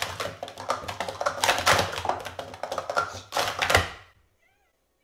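Plastic sport-stacking cups clattering in a fast run of taps and clacks as they are stacked up and down at speed. It stops a little before four seconds in.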